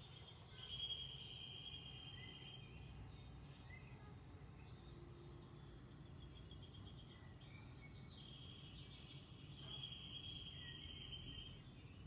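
Faint chirping and trilling of birds over a low steady hum, with a soft knock about five seconds in.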